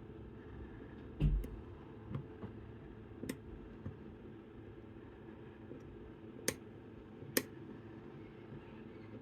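Chubb Detector lever lock being picked: a dull knock about a second in, then a few sharp, sparse metallic clicks of the picking tools in the lock, the two loudest about a second apart later on.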